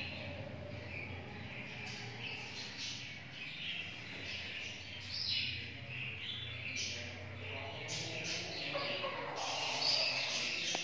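Birds chirping: a steady scatter of short, high chirps, over a low, steady hum.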